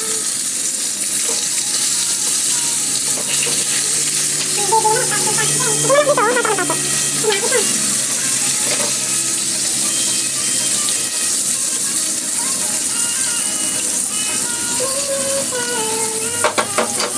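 Hot cooking oil sizzling steadily as food fries in a pan.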